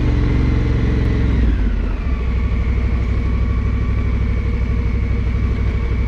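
Adventure motorcycle engine running close by. About a second and a half in, its pitch and level drop and it settles into an even idle.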